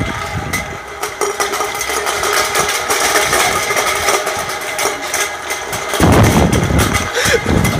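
Aluminium beer cans knocking and clattering on asphalt around a moving forklift. A louder, deeper rumble comes in about six seconds in.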